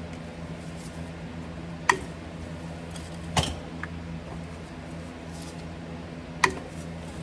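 Three sharp clicks of a hand wrench on the bolts of a semi truck's transmission cover plate as they are loosened, over a steady low hum.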